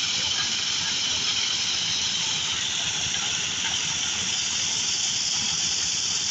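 Corn sheller running: a steady, unbroken rushing hiss.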